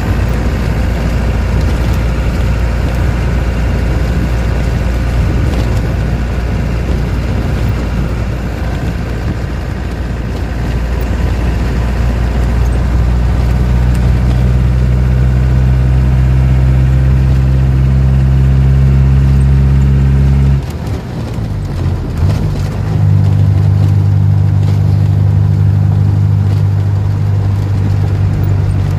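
Engine of a wooden-bodied songthaew pickup bus running steadily at cruising speed, with tyre and wind noise heard from inside the cab. About two-thirds of the way through, the engine note drops away for a couple of seconds, then pulls again at a slightly lower pitch.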